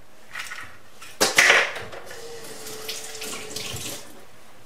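Running water splashing: a loud gush about a second in, then steady for a couple of seconds before it stops.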